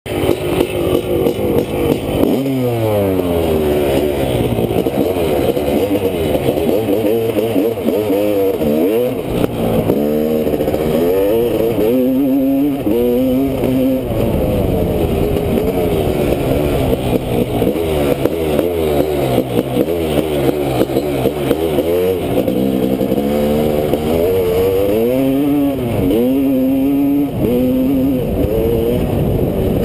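Honda CR500's two-stroke single-cylinder engine, ridden hard: it revs up and pulls through the gears, the pitch climbing and dropping back with each shift over and over.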